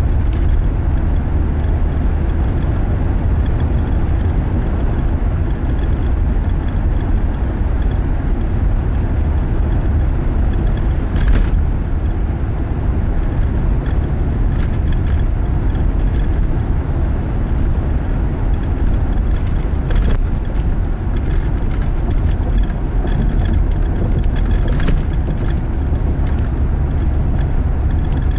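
Car driving at road speed, heard from inside the cabin: a steady low rumble of engine and tyre noise, with a few brief clicks.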